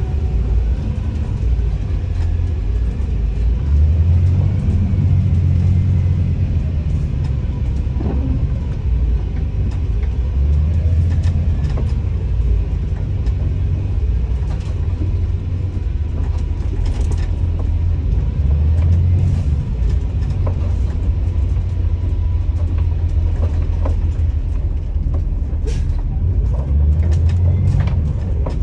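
Blue Bird All American school bus running, a steady low drone that swells and eases every several seconds, with a few faint light clicks or rattles near the end.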